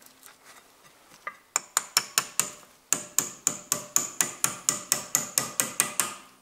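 Small hammer tapping a steel brake lock pin to drive it into place through the brake parts: quick, sharp metallic taps, about five a second. They start about a second and a half in, pause briefly, then run on steadily.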